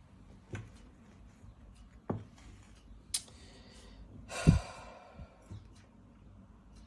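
A few light clicks and knocks, then a heavy sigh with a breathy rush about four and a half seconds in, the loudest sound, followed by two faint knocks.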